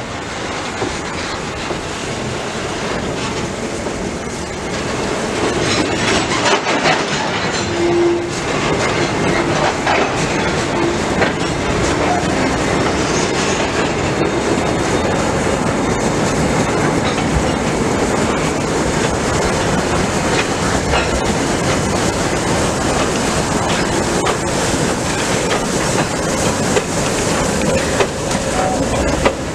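Steam-hauled train of old goods wagons rolling slowly past, wheels clattering over the rail joints, getting louder over the first several seconds as it nears and then holding steady.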